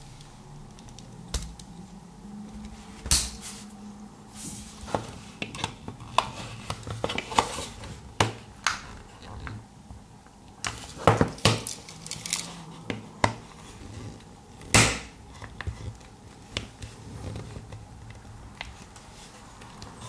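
Irregular clicks, taps and scrapes of a pocket knife's flat tool being worked into the seam of a plastic remote-control case to pry its halves apart. The sharpest snaps come about three, eleven and fifteen seconds in.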